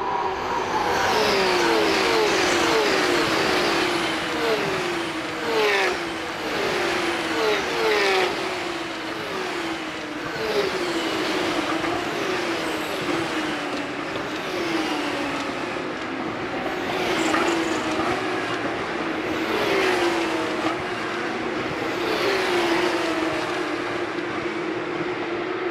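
A pack of Porsche 911 GT3 Cup (992) race cars passing one after another, their 4.0-litre flat-six engines running hard. Each engine note falls in pitch as it goes by, with a few louder cars standing out.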